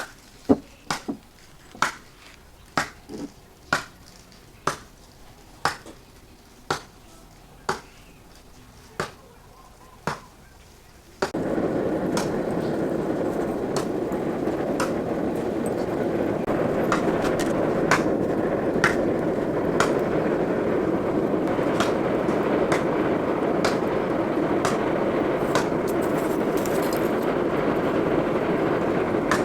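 Hammer blows on steel at about one a second, a few of them doubled, for roughly the first eleven seconds. Then a loud steady machine noise starts abruptly and runs on, with occasional knocks over it.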